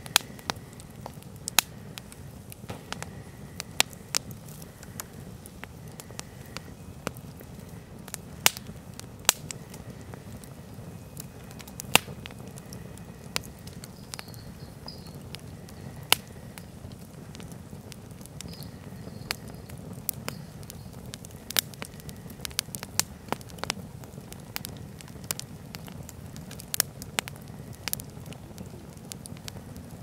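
Log campfire burning, the wood crackling and popping at irregular moments with a few loud sharp pops, over a low steady background.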